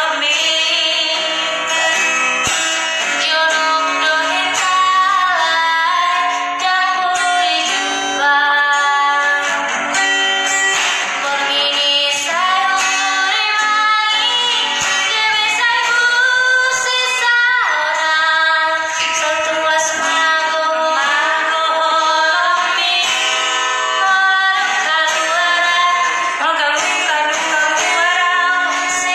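A woman singing a song to acoustic guitar accompaniment.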